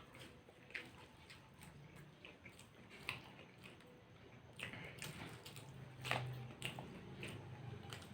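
People biting into and chewing fried cutlets and snacks, with scattered crisp bites and mouth sounds at irregular moments.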